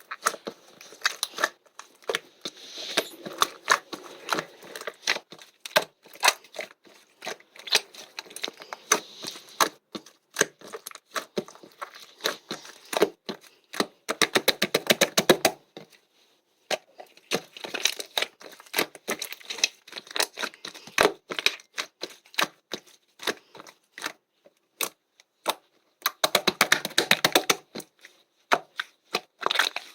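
Soft, bubbly 'steamed egg' material being pressed and squished, its trapped air bubbles popping in dense crackling runs. The crackling comes in bursts with short pauses, busiest about halfway through and again near the end.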